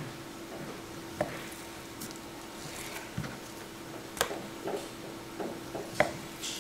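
Raw beef being sliced into strips with a sharp knife on a wooden cutting board: soft cutting sounds with a few scattered taps and knocks on the board, over a faint steady hum.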